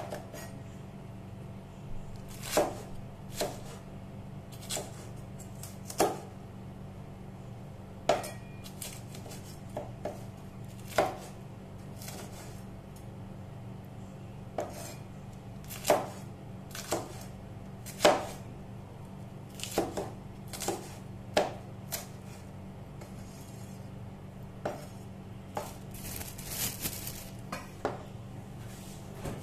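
Kitchen knife cutting red peppers on a wooden cutting board: irregular sharp chops, about one every second or two, with a quicker run of cuts near the end, over a steady low hum.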